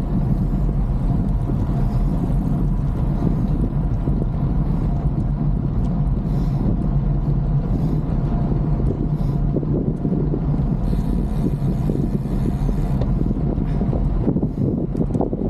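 Steady wind rush on the microphone with a continuous low road rumble, as heard while riding a bicycle.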